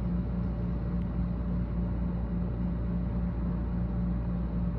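Heavy rain and strong wind of a severe thunderstorm, heard as a steady rushing noise over a deep, pulsing rumble, with a faint steady hum above it.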